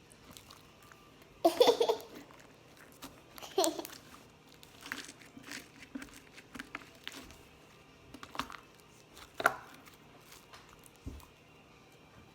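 A girl makes two short voiced outbursts, such as giggles or throat noises, in the first few seconds. Between and after them come scattered small clicks and crackles of slime being squeezed and poked.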